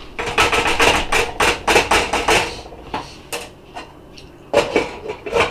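A spoon knocking and clinking against a small pot and a bowl as chili is dished up. There is a quick run of about a dozen sharp knocks in the first two and a half seconds, then a few more, louder ones near the end.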